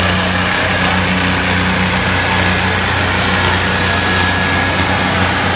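Diesel engines of a John Deere 5050D and a Mahindra Arjun 605 tractor running steadily under heavy load as the two tractors, chained back to back, pull against each other in a tug-of-war.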